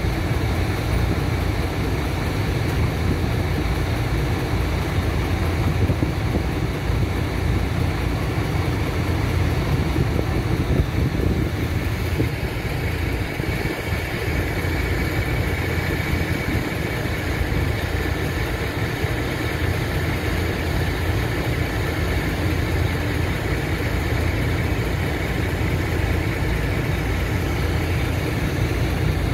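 Volvo EC350DL crawler excavator's diesel engine running steadily at idle, a low even rumble. A thin steady high whine joins in about twelve seconds in.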